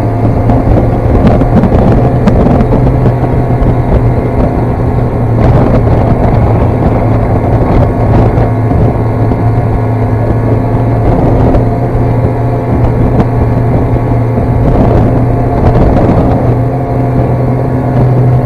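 Snowmobile engine running steadily under way, a loud, even drone that holds its pitch.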